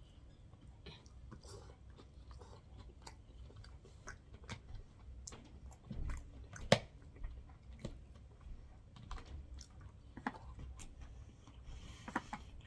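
Close-miked chewing of sushi, with small wet mouth clicks throughout. A single sharp click, the loudest sound, comes a little over halfway through.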